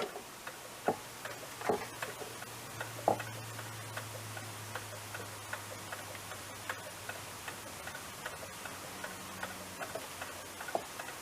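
Light, irregular clicks and taps of small tools and parts being handled during close bench work, a few louder ones in the first three seconds. A low steady hum runs under them and stops near the end.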